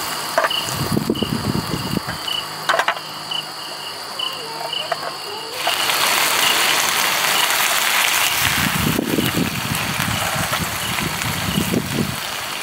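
Night insects chirping in a steady, regular rhythm of about two short high chirps a second. About halfway through, a louder, even hiss sets in beneath them.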